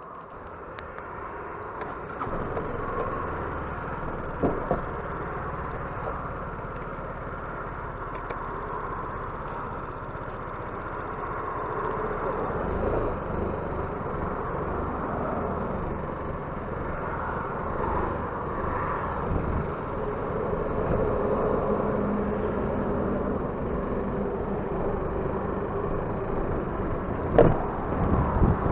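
Yamaha X-Max 250 scooter's single-cylinder four-stroke engine running as it pulls away and rides slowly, picked up with road and wind noise by a windscreen-mounted camera. The sound grows louder over the first couple of seconds. There is a short knock a few seconds in and a louder pair of thumps near the end.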